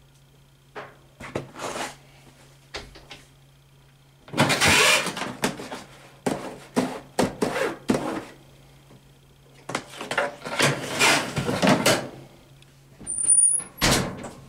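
Laundry being handled close by: irregular bursts of rustling and knocking in several clusters, with a sharp knock near the end, over a steady low hum.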